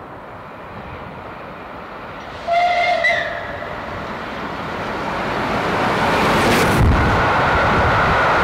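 Bulleid Merchant Navy class steam locomotive No. 35028 approaching, sounding one short whistle of two notes about two and a half seconds in. Its running noise then grows steadily louder as it draws near, with a sharp thump about seven seconds in, after which a steady high tone sits in the noise.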